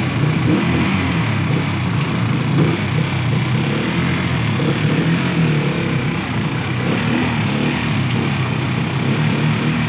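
Small gasoline engine of a motorcycle-type vehicle running steadily as it drives along the street, on a tank that is nearly empty: the engine has already been stalling.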